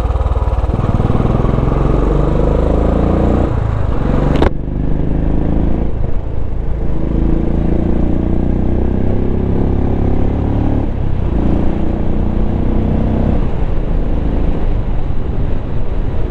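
Royal Enfield Classic 350's single-cylinder engine running through a newly fitted aftermarket exhaust as the motorcycle accelerates through the gears. The engine note climbs, drops back at a gear change about two-thirds of the way through, and climbs again. A single sharp crack comes a few seconds in.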